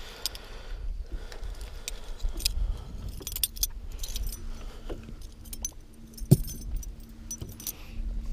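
Small metal clinks and jingles of a steel leader snap and a bucktail's blades and hooks as a musky lure is unclipped and swapped, with one sharper knock about six seconds in.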